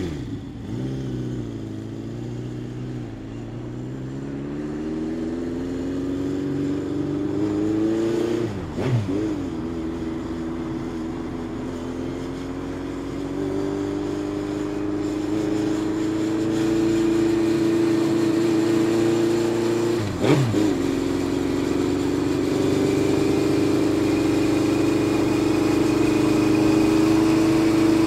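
1975 Honda CB750Four K6's air-cooled inline-four engine running as the motorcycle is ridden on the road. Its note climbs steadily for about eight seconds, breaks sharply about nine seconds in and again around twenty seconds, then runs on steadier with a slowly rising pitch.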